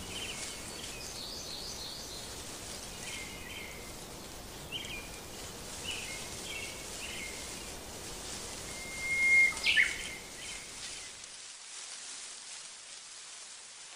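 Steady hiss of rain with birds chirping in short calls, and one louder bird call a little before ten seconds in.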